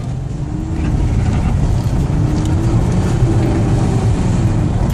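Audi A6 2.5 TDI quattro's V6 turbodiesel engine pulling under load. It gets louder about a second in and holds there, with a faint tone slowly rising in pitch.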